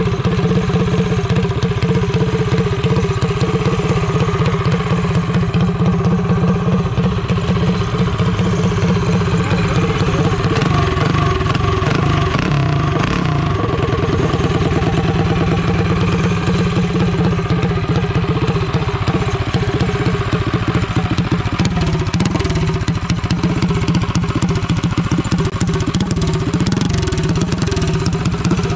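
Mini bike engine running steadily, with some rises and falls in pitch around the middle.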